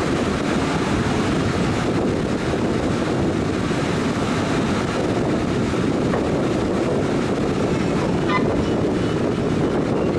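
Passenger train carriage running on the rails, a steady rumble with wind rushing past the open doorway and buffeting the microphone. A brief faint high squeal about eight seconds in.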